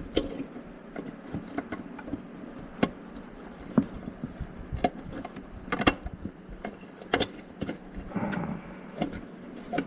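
Hands working a motorcycle headlight assembly and its fittings loose: irregular clicks, taps and rattles of plastic and metal parts, with a few sharper knocks.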